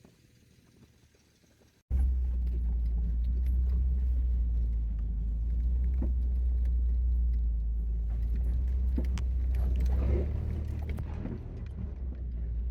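A vehicle driving steadily, its engine and road rumble heard as a loud low drone with light rattles. It starts abruptly about two seconds in and eases off somewhat near the end.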